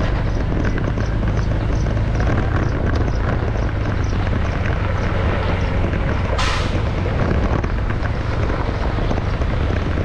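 Steady vehicle and road noise while travelling along a road, with wind on the microphone, and a brief hiss about six and a half seconds in.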